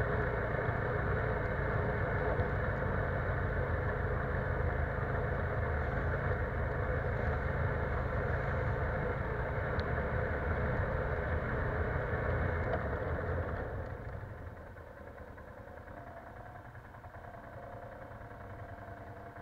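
ATV engine running steadily under throttle as the machine rides along, then easing off about two-thirds of the way through and settling to a quieter idle.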